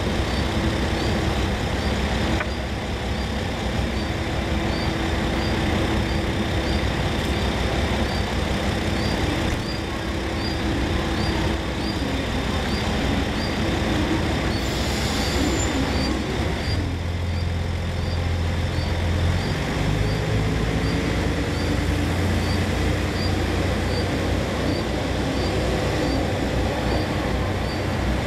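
HOT7000 Super Hakuto diesel railcar's engine running at idle, then opening up about two-thirds of the way through as the single car pulls away, its low drone growing heavier. A faint high tick repeats steadily throughout.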